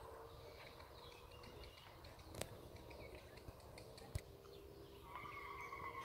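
Faint bird calls and chirps, with a longer held call near the end and two sharp clicks about two and four seconds in.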